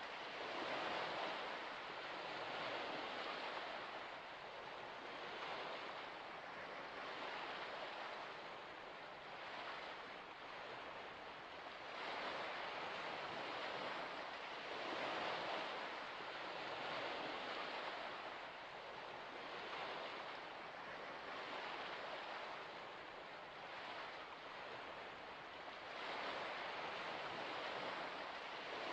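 Small waves washing in: a soft rushing hiss that swells and fades every two to three seconds.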